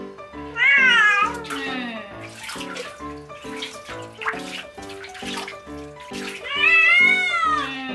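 Long-haired munchkin cat giving two loud, drawn-out meows while her fur is wetted for a bath: one about half a second in, and a longer, rising-then-falling one near the end. Background music with a steady beat plays throughout.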